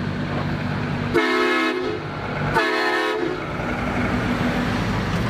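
Two blasts of a truck horn, each under a second, about a second in and again near the middle, over the steady running of a Scania R520's V8 diesel engine as the cement mixer truck drives past.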